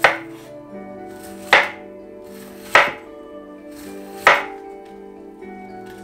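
Chef's knife cutting through a head of white cabbage and striking the cutting board, four strokes about a second and a half apart.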